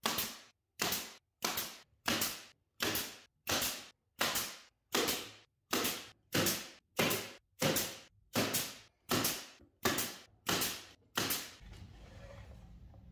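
Pneumatic brad nailer firing over and over into plywood joints, a sharp shot roughly every 0.6 s, about nineteen in all. The shots stop near the end, leaving a low steady hum.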